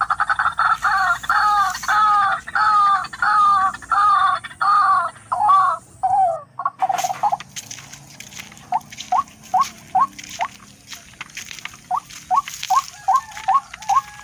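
Repeated calls of a tikling (barred rail): a run of loud, rising notes about two or three a second, then after a sudden break about seven seconds in, shorter, quicker call notes over clicking and rustling.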